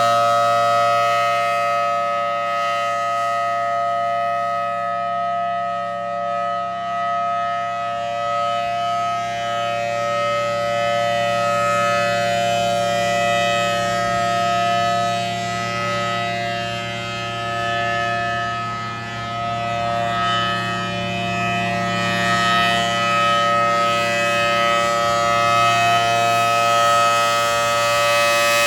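Federal Signal Thunderbolt 1000AT outdoor warning siren sounding a steady alert signal. It holds a steady chord of several tones at constant pitch, swelling and fading slowly in loudness as the siren head rotates.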